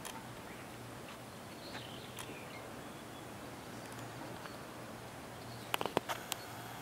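Outdoor ambience: a steady background hiss with a faint bird-like chirp about two seconds in, then a quick run of four or five sharp clicks near the end.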